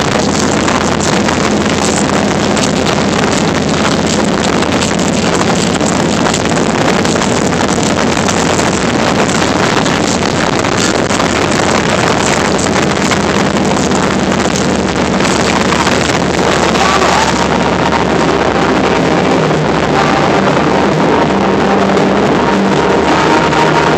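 Harley-Davidson Heritage Softail's V-twin engine running at road speed, with heavy wind rushing over the phone's microphone. About two-thirds of the way through, the wind noise thins and the engine's tones come through more clearly.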